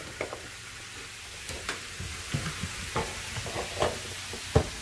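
Ground meat sizzling in a frying pan while a spatula stirs it, with a steady hiss and scattered short knocks of the utensil against the pan.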